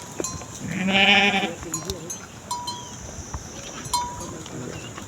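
A sheep or goat of the flock gives one loud, wavering bleat about a second in, while animal neck bells clink several times.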